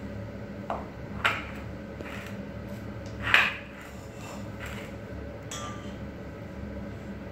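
Pots and utensils clinking and knocking as a toddler handles them: about six light strikes spread out, the loudest two about a second and three and a half seconds in, over a steady low hum.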